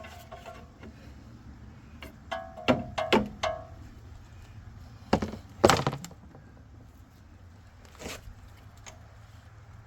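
Several sharp metal clunks and knocks from tools and suspension parts as a new front strut is lined up on a 2007 Chevy Avalanche's front suspension. There are two knocks about three seconds in, a louder pair a little past five seconds, and a single one near the end.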